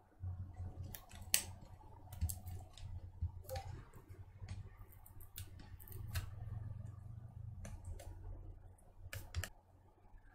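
Scattered sharp clicks and taps of fingers and a small metal cover plate on the MacBook Pro's aluminium case as the plate over the trackpad is fitted back on, with low, dull handling bumps underneath.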